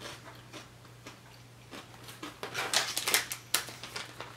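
A person chewing a crunchy chocolate-and-almond Pepero biscuit stick, with crisp crunches that grow louder and closer together from about halfway in. A steady low hum lies underneath.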